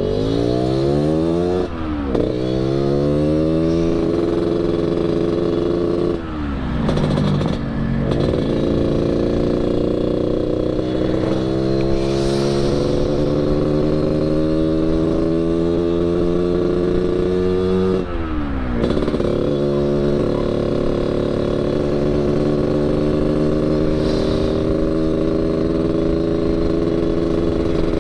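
Yamaha RX-King 135 single-cylinder two-stroke engine with an aftermarket 'kolong' exhaust, ridden hard through the gears. Its note climbs fast and drops at quick upshifts in the first few seconds, then rises slowly over about ten seconds, drops sharply again around eighteen seconds in, and holds a steady pull after that.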